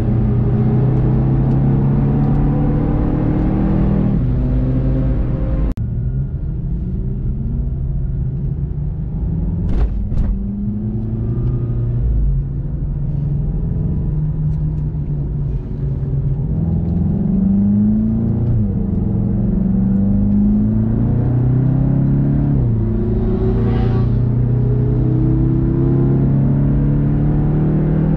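VW Golf 7.5 GTI TCR's turbocharged 2.0-litre four-cylinder engine, heard from inside the car: running hard at speed, then dropping off abruptly about six seconds in to a quieter low-speed run. In the second half it accelerates again, its pitch climbing in steps broken by upshifts.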